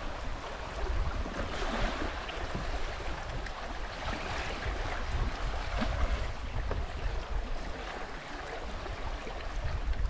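River water splashing and flowing around a bamboo raft as it drifts downstream, a steady rushing hiss with a few faint ticks and a low rumble underneath.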